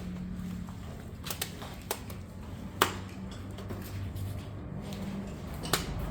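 Five short, sharp clicks or knocks, the loudest about three seconds in, over a steady low hum.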